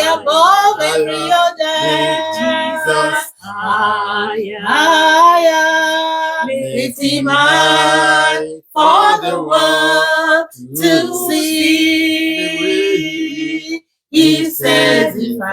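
Unaccompanied singing of a worship chorus: long notes held for a second or more and bending in pitch, broken by short pauses between phrases.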